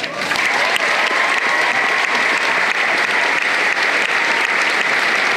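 Large crowd applauding, starting at once and holding steady.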